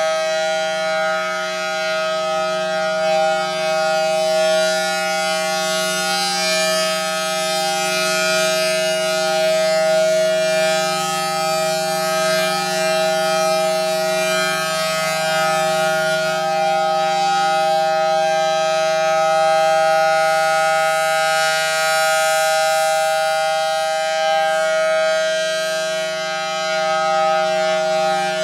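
A Federal Signal Thunderbolt 1000T tornado siren with a 4/5-port rotor sounds its steady full-alert tone: several tones at once, held at a constant pitch, its loudness swelling and fading slightly as it turns. Its blower runs backwards, sucking air instead of blowing, which the owner of the recording takes to be why it is not as loud as it could be.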